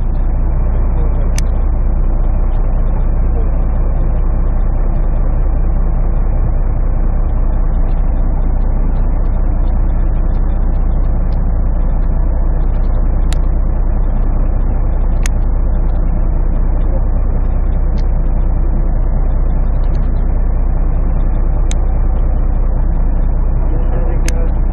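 Boat engine running steadily, a constant low rumble, with a few brief sharp ticks scattered through it.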